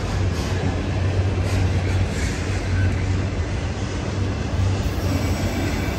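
Freight train of autorack cars rolling past on the rails, a steady loud rumble with a low drone underneath, the train picking up speed.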